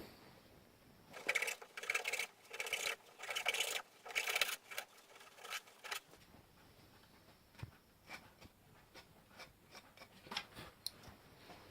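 Hand saw cutting through a small piece of wood in quick back-and-forth rasping strokes, about two a second. The strokes start about a second in and stop about six seconds in, followed by a few faint clicks.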